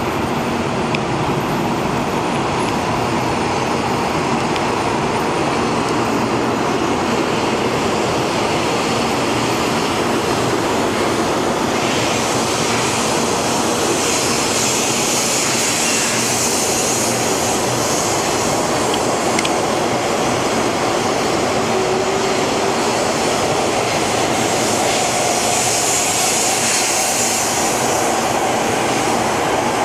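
High-speed electric train running past along a station platform: a steady rush of air and wheel-on-rail noise, with a high hiss that swells about halfway through and again near the end.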